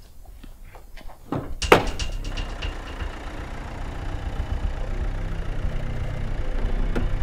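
A car door slams shut about a second and a half in, then a car's engine and tyre noise run steadily, growing slowly louder as the car drives off.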